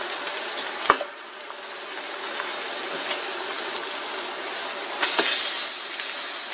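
Meat and onions sizzling as they fry in hot oil in a large cooking pot. A sharp knock comes about a second in and another around five seconds in, after which the sizzling grows louder.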